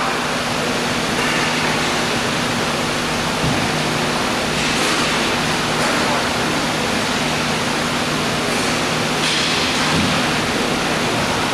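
Indoor roller hockey rink ambience during a game: a steady rushing noise over a low hum, swelling briefly about five and ten seconds in.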